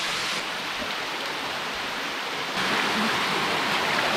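Water of a small rock waterfall rushing and splashing close by, a steady hiss-like rush that steps up suddenly, louder and brighter, about two and a half seconds in.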